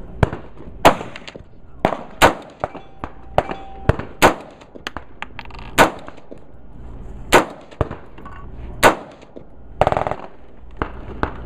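AR-15-style rifle firing .223 rounds in slow, deliberate semi-automatic fire: about eight sharp single shots, spaced a second or so apart.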